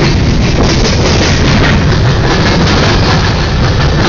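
Freight train of covered hopper cars rolling past at close range: a loud, steady rumble and clatter of steel wheels on rail.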